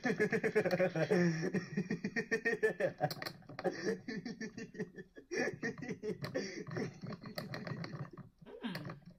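A young man laughing hard in two long bouts with a short break about five seconds in, dying down near the end, with a few sharp clicks among it.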